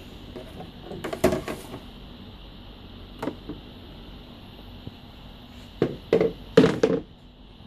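Knocks and clunks of the cover and parts of a Suzumo food machine being handled as it is taken apart: a cluster about a second in, a single knock about three seconds in, and a louder run of knocks near the end.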